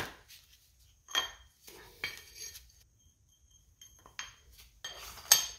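Spacer donuts being slid off the shaft of a lowrider hydraulic cylinder one at a time, clinking metallically against the shaft and each other. There are five or six separate clinks, some ringing briefly, and the loudest comes near the end.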